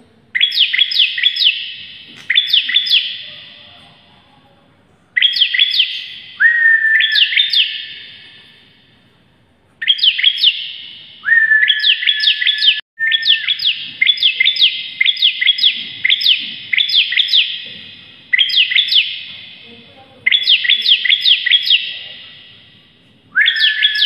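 Caged bar-winged prinia (ciblek) singing loudly in repeated bursts of rapid, sharp, down-slurred notes, some bursts opening with a short held whistle, with a long run of bursts about halfway through. Each burst leaves an echoing tail.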